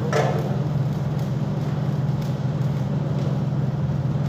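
Welding machine running with a steady low hum, a noisy hiss over it and a few faint crackles, while arc welding goes on.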